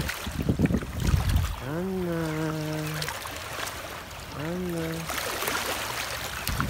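Small waves lapping and trickling over rocks at the water's edge, with low rumbling thumps in the first second or so. Two drawn-out low calls rise briefly and then hold steady, one at about two seconds lasting over a second and a shorter one at about four and a half seconds.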